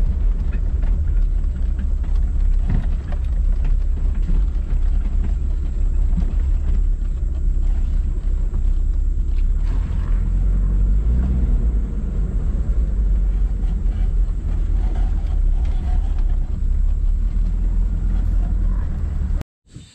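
Vehicle on the move, a loud steady low rumble of engine and road noise that cuts off abruptly near the end.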